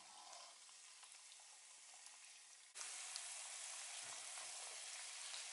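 Papri dough discs deep-frying in oil on medium heat: a steady sizzle that turns abruptly louder about three seconds in.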